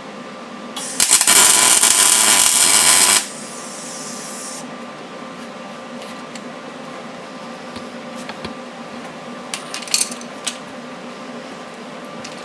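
Welder crackling in one burst of about two and a half seconds as a nut is welded onto an old exhaust header stud, so the stud can be turned out. A few light clicks follow later.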